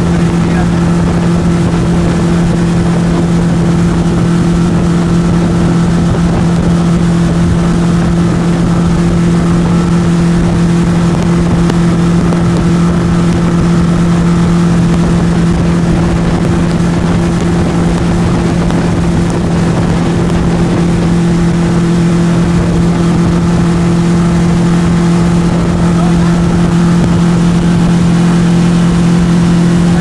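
Motorboat engine running at a steady speed, heard from on board as a constant, unchanging low drone.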